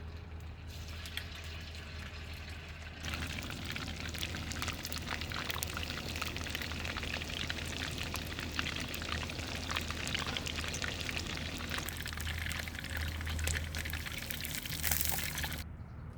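Fish sizzling and crackling in hot oil, a dense hiss full of small pops that starts suddenly about three seconds in and stops near the end, over a steady low hum.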